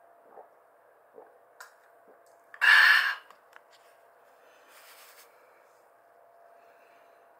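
A thin plastic cup of beer handled and set down on a desk coaster: a few light clicks, then one short, loud crackle about two and a half seconds in, and a softer rustle near the five-second mark, over a faint steady hum.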